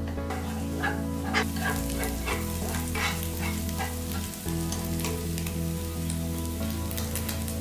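Eggs sizzling as they fry in a nonstick frying pan, stirred and broken up, with irregular light clicks and scrapes of the utensil against the pan.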